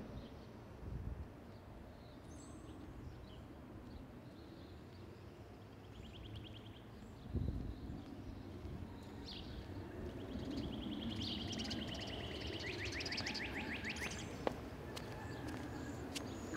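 Outdoor background noise with birds singing: a few high chirps, then rapid trills about six seconds in and again, louder, from about ten to fourteen seconds in. A low bump about seven seconds in.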